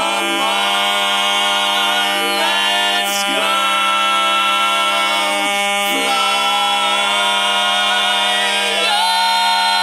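Barbershop quartet of four men singing a cappella in close four-part harmony, holding long chords. One low note is held steady underneath while the upper parts shift to new chords every second or two, with another change near the end.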